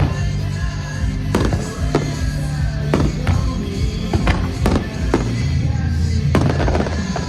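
Fireworks bursting overhead, about nine sharp bangs spread irregularly over seven seconds, over loud music played for the display.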